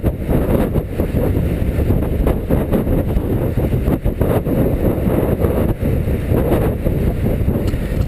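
Wind rushing and buffeting over the microphone of a bike-mounted action camera while riding: a loud, steady, low rushing that flutters unevenly.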